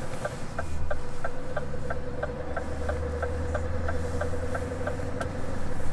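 Scania truck's cab indicator ticking about three times a second and stopping about five seconds in, over the low drone of the diesel engine. The drone grows stronger about half a second in.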